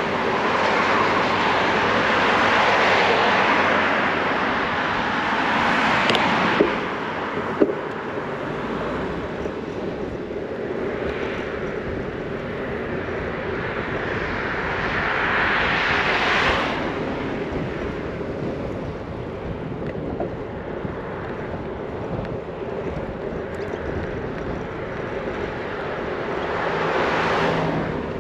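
Steady wind and road rush on a bicycle-mounted action camera's fur-covered microphone. Three passing cars each swell up and fade away. Two sharp clicks come about six and seven and a half seconds in.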